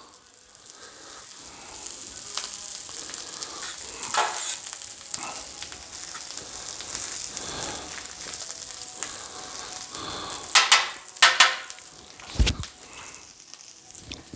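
Shrimp fried rice sizzling steadily on a Blackstone flat-top griddle, being stirred. A few louder scrapes come about two-thirds of the way through, followed by a short low thump.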